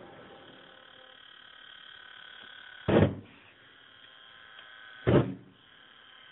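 Small computer cooling fan running with a steady high whine, broken twice, about two seconds apart, by short loud bursts from a spray-can flame torch aimed at it.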